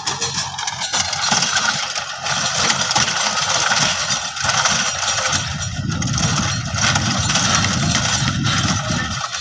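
Tractor engine running while its rotary tiller churns the soil, a dense mechanical clatter over the engine's low, steady running, the engine growing stronger about halfway through.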